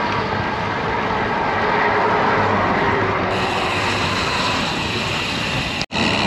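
Steady rush of wind on the microphone and tyre and engine noise from passing road traffic, heard from a bicycle on a highway shoulder, with a brief dropout near the end.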